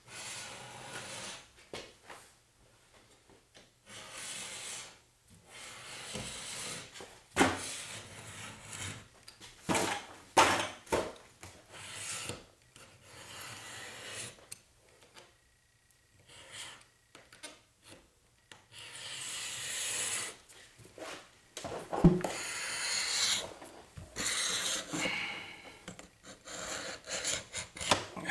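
Olfa scoring knife drawn again and again along a metal straight edge, scraping score lines into 6061-T6 aluminium sheet. Many rasping strokes of uneven length come with gaps between them and a few sharp clicks, the loudest about two-thirds of the way through.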